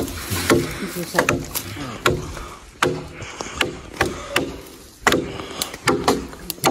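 Axe blows chopping into a felled wooden pole: irregular sharp knocks, about two to three a second, as the trunk is hewn, with people's voices talking underneath.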